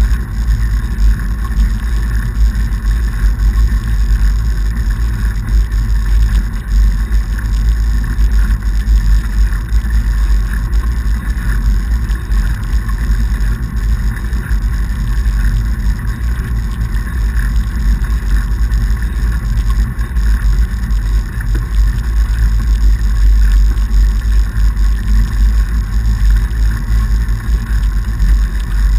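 Fatbike riding over a packed-snow path: a steady low rumble of wind buffeting the camera's microphone mixed with the fat tyres rolling over snow.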